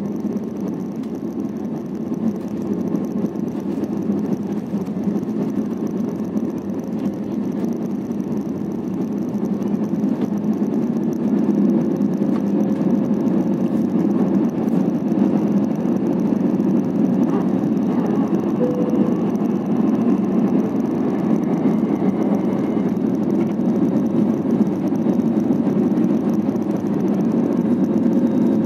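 Jet engines at takeoff thrust, heard from inside the cabin of an Airbus A320-family airliner during the takeoff roll and liftoff. The noise is steady and grows louder about ten seconds in, then holds.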